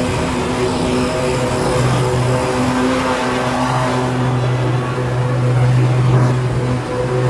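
BigDog Trooper stand-on mower running steadily while mowing tall weeds: a steady engine hum over a broad rush of noise from the cutting deck.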